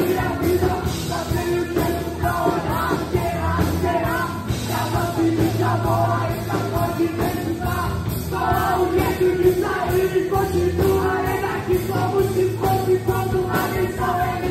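Live rock band playing in a hall: a male singer on a microphone over drums, electric bass and guitars, with steady low bass notes and a regular beat.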